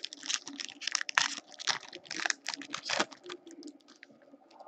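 Foil wrapper of an Upper Deck Ice hockey card pack crinkling and tearing as it is pulled open by hand: a quick run of crackles for about three seconds, then a few scattered ones.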